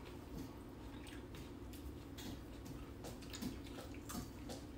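Hot pot broth simmering in a pot on a tabletop gas burner, with scattered small clicks and taps of chopsticks and dishes.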